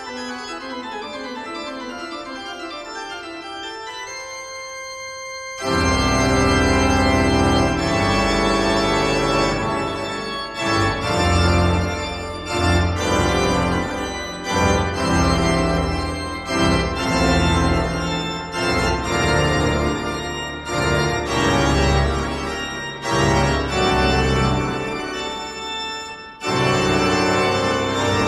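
Background keyboard music with an organ-like sound: quiet for about the first five seconds, then much louder and fuller, with a deep bass.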